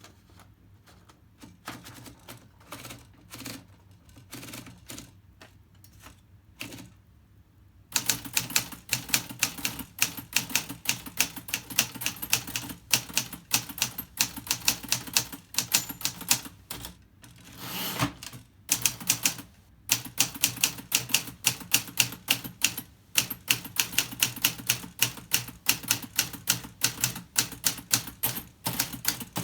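Antique Remington manual typewriter being typed on: a few slow, scattered key strikes at first, then from about eight seconds in, fast, steady typing with sharp clacks several times a second. About two-thirds through, the typing stops briefly around one longer rattling sound, then resumes.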